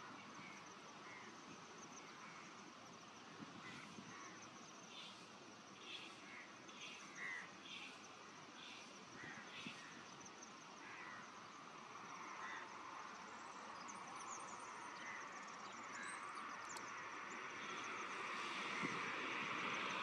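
Faint outdoor ambience of small birds calling: a run of short high chirps, roughly one or two a second, over a steady high-pitched buzz. The background hiss grows louder in the last few seconds.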